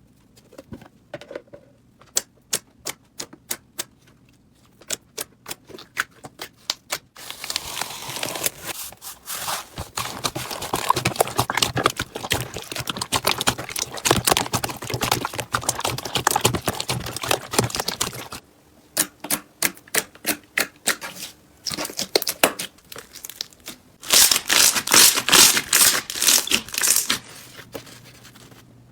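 Slime being squeezed and poked by hand: runs of sharp clicking pops, alternating with long stretches of dense crackling.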